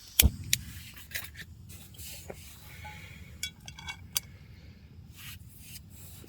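Camping cookware being handled: one sharp knock with a low thud about a quarter second in, then a scatter of lighter clicks and clatters.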